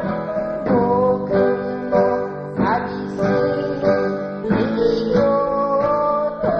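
Music: acoustic guitar strummed at a steady beat, about one and a half strokes a second, under a melody of held notes that slide up into pitch.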